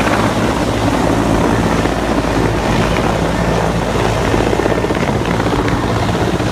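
Large military transport helicopter hovering low as it comes in to land, its main rotor beating in a steady rapid thud under the continuous noise of its turbines.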